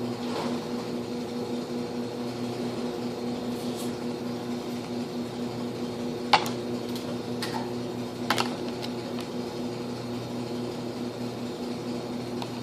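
Steady low electrical hum in a small room, with a few sharp clicks and taps from about six to eight seconds in.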